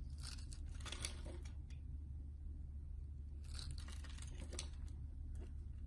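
A small blade shaving thin layers off a bar of soap: a crisp, crackly scraping in two runs of quick strokes, each about a second long, one near the start and one around halfway through.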